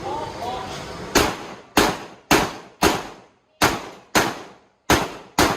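Shotgun being fired in an IPSC shotgun match stage: eight loud shots in quick succession, about two a second, starting about a second in.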